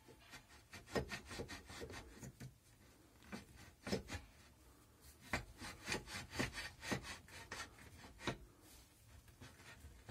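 Quiet, irregular clicks and light knocks from handling a small wood lathe at rest: its tool rest and locking lever are being adjusted and the wooden blank is touched. A faint steady low hum runs underneath.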